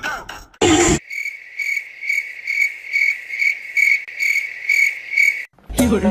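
Cricket chirping sound effect: a run of about ten even chirps, a little over two a second, starting about a second in and stopping shortly before the end. Just before the chirps begins there is a brief loud burst of noise.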